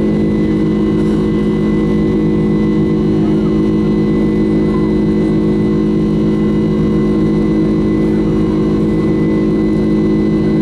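Boeing 767 jet engines heard from inside the passenger cabin during the climb after takeoff: a loud, steady drone with several steady tones over a rushing hiss.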